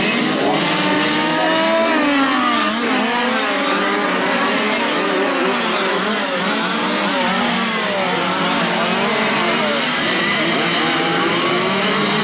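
A pack of 1/5-scale petrol radio-controlled racing cars lapping, their small two-stroke engines rising and falling in pitch over one another as they accelerate and brake through the corners.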